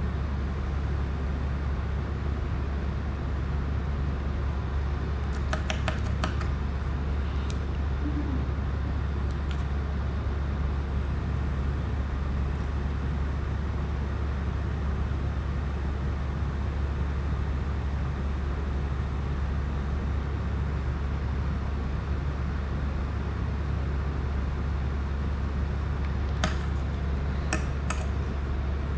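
Steady low hum with a hiss underneath. A few light clicks of small tools touching the drone's metal parts come about six seconds in and again near the end.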